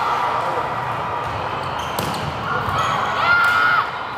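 A volleyball struck once by hand about two seconds in, a single sharp smack over the steady hubbub of the gym. Near the end comes a high-pitched shout from a girl on court, lasting about a second.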